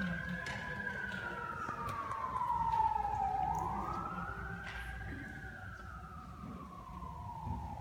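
Emergency-vehicle siren in a slow wail, its pitch rising and falling about once every four to five seconds.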